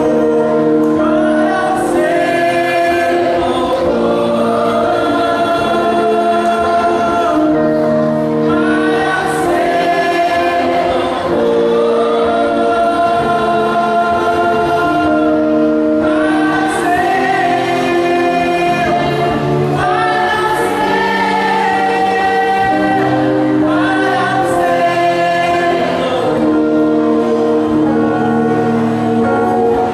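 Gospel worship song: a man singing into a handheld microphone over amplified backing music with held chords.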